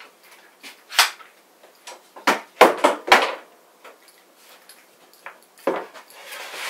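Clamps being handled and knocked against a plywood workbench while a board is clamped down. There is one knock about a second in, then a quick run of four clattering knocks, another knock near the end, and a short scraping noise just after it.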